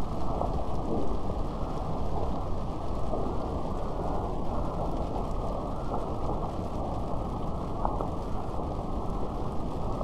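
Steady heavy rain, a dense even wash of noise that sounds muffled, with little treble.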